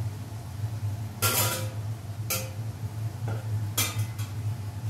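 Metal kitchenware clattering: about four sharp clinks and knocks of a metal tray and pans on the hob, the loudest a little over a second in with a brief ring, over a steady low hum.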